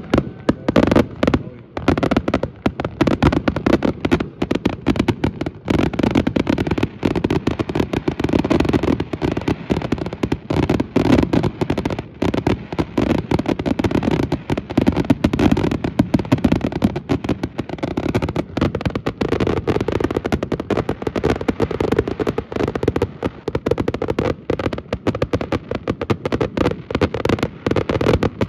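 Dense barrage of aerial fireworks being launched and bursting, with rapid overlapping bangs and hardly a pause.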